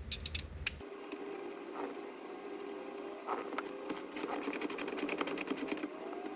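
Hand ratchet clicking as a bolt is run in on the short shifter's linkage. There are a few separate clicks at first, then a fast even run of clicks about four seconds in, over a steady hum.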